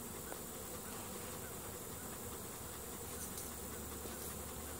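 Honeybees from a disturbed colony buzzing steadily as a continuous swarm hum.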